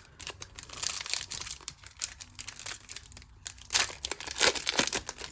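Crinkling and tearing of Pokémon TCG booster-pack wrapper, a run of crackly rustles that is loudest near the end.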